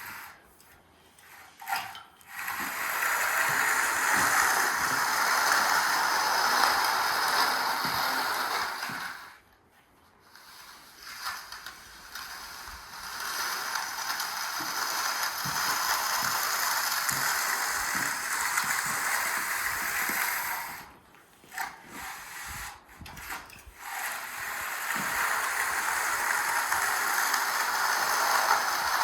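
A bull float scraping across a freshly poured concrete slab in long, steady strokes, with short pauses between strokes.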